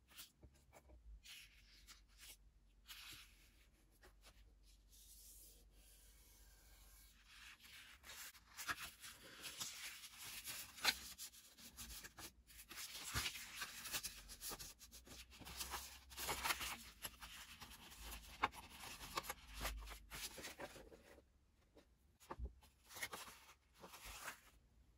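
Sheets of colored construction paper rustling and rubbing as they are pressed along a crease, folded and handled, with small crinkles and taps. Quiet at first, busier through the middle, thinning out near the end.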